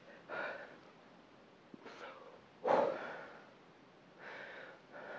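A woman breathing hard with exertion: about five short, noisy breaths in and out, the sharpest and loudest one about two and a half seconds in.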